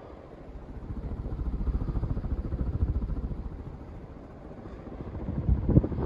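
52-inch Casablanca Delta ceiling fan running, heard as a low rumble of moving air that swells and fades, loudest a couple of seconds in and again near the end.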